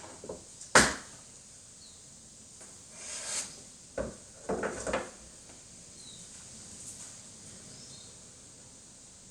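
A loud sharp click, then a few seconds later another click and a short run of knocks and rustles: objects being handled at close range.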